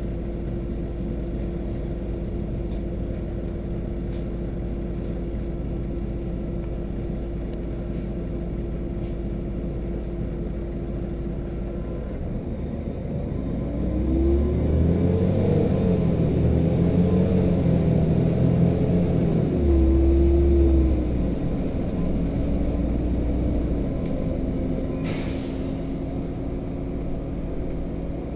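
Bus engine and road noise heard from inside the cabin, a steady low hum. About halfway through it grows louder and the engine note rises and falls a few times, then settles back into a steady drone.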